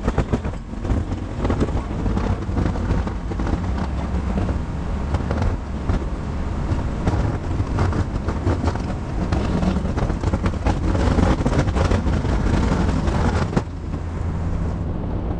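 Pickup truck engine running steadily under load while its snowplow pushes snow, with a dense rushing noise and scattered clatter over the engine's hum. It grows louder for a few seconds past the middle, then eases near the end.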